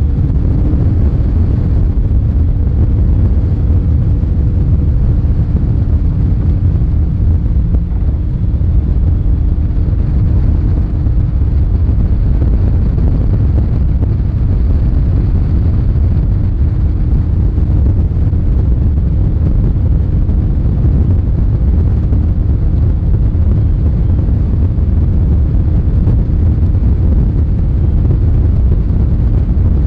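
Phoenix 920 Pro XP fiberglass bass boat running at speed: a steady, heavy rumble of wind on the microphone mixed with the outboard engine's drone and a faint steady hum.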